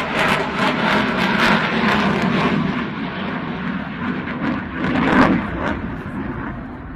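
Jet noise from an F-35B's Pratt & Whitney F135 turbofan flying overhead: a loud, crackling rush that swells about five seconds in and then fades away near the end.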